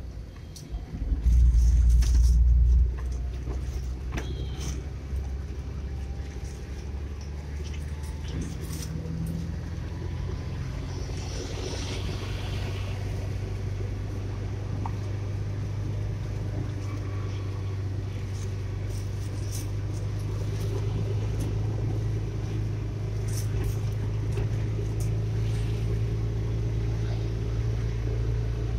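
Steady low drone of a car's engine and tyres on the road, heard from inside the cabin while driving. About a second in comes a much louder low rumble lasting about a second and a half.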